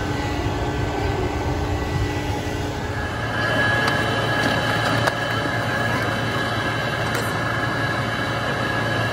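Vacuum cleaner running steadily: a loud, even whoosh with a whine, the whine changing pitch about three seconds in.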